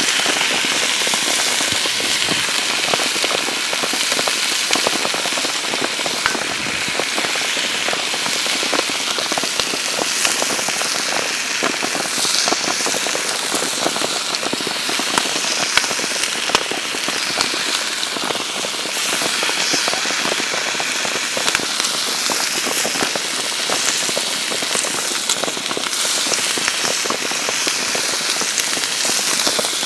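Steady rain, a dense spread of small drop hits at an even level with no let-up.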